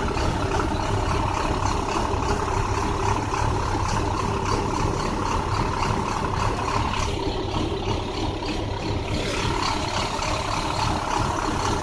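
2009 International bus engine running with a bad misfire, its steady drone broken by an uneven, irregular beat. Past the middle, the higher part of the sound drops away for about two seconds, then returns.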